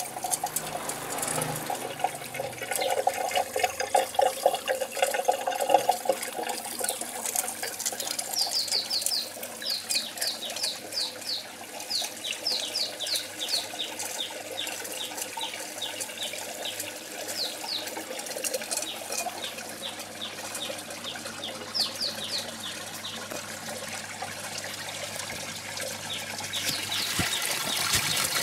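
Water running and trickling through a hydroponic system's PVC channels and splashing back into the reservoir, louder for a few seconds near the start. A bird calls a run of quick, short descending chirps through the middle.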